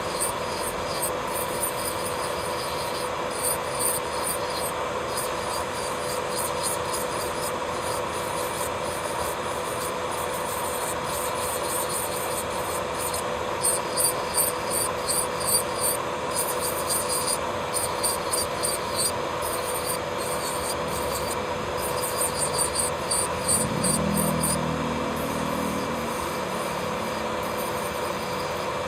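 Electric nail drill (e-file) running with a steady whine while its bit grinds base gel off a fingernail. Spells of quick scratchy strokes come and go over the constant motor tone.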